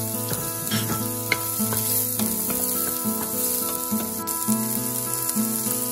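Sliced carrots, green beans and onion sizzling in hot oil in a nonstick wok, stirred with a wooden spatula, under steady background music.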